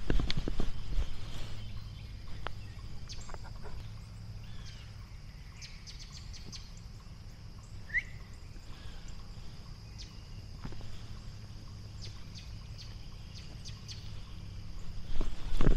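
Quiet rural outdoor ambience with a steady high-pitched hum, a single short rising bird chirp about halfway through, and footsteps near the start that return, louder, near the end.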